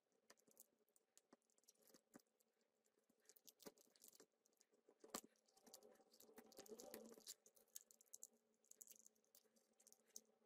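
Faint clicks, taps and scraping of a plastic pry tool working a lithium battery pack out of a power bank's casing, with a longer scrape about six to seven seconds in.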